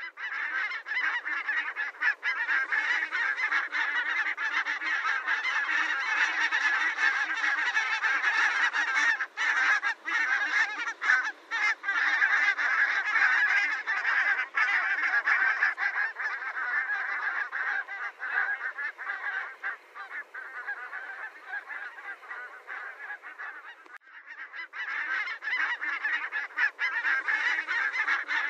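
A large flock of geese honking and cackling without pause, many calls overlapping, with a brief lull a few seconds before the end before it swells again.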